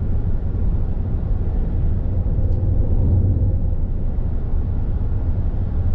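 Inside the cabin of a 1996 Buick Regal at cruising speed: a steady low rumble of engine and road noise.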